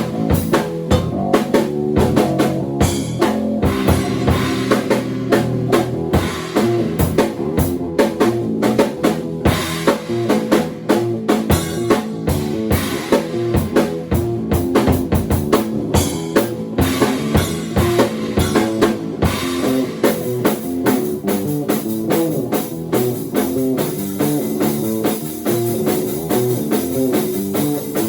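Bass and drum kit improvising together: busy, continuous drumming over a shifting bass line.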